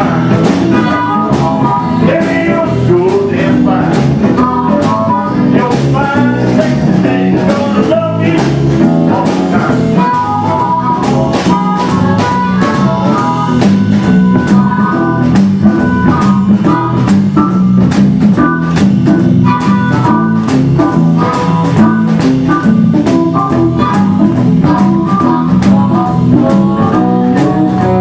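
Live blues band playing, led by a harmonica cupped against a vocal microphone, over guitar, bass and drums.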